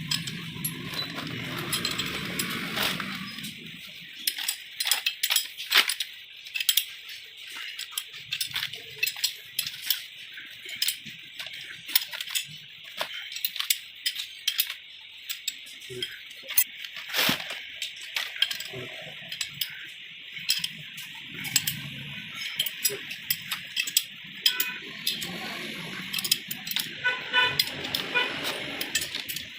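Irregular light metallic clinks and taps of small metal objects being handled, many short sharp strikes over a steady hiss.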